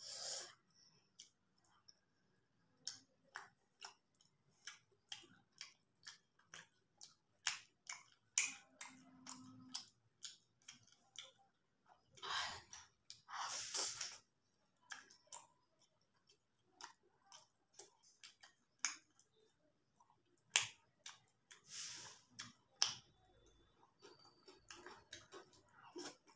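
Close-miked chewing of rice and fish curry: a steady run of short wet mouth clicks and lip smacks, with a few longer, louder smacking bursts along the way.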